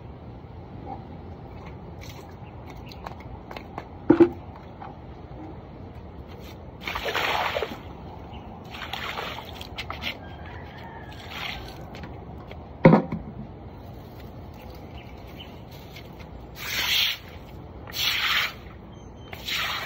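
Broom sweeping pavement: a series of hissing, scraping strokes about a second long each, coming closer together near the end, with two sharp knocks, one about four seconds in and one about thirteen seconds in.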